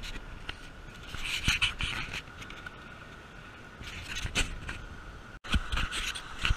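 Shallow surf washing and splashing, in bursts of hiss, over a faint steady high tone.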